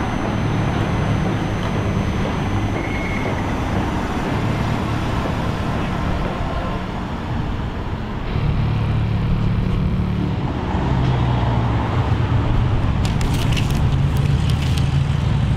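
Steady city street traffic noise: a continuous low rumble of cars on the road. Near the end there is a brief crisp rustling, like paper pages being handled.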